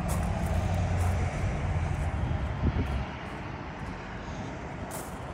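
Highway traffic noise: a steady rush of passing vehicles, with a heavier low rumble that fades about three seconds in.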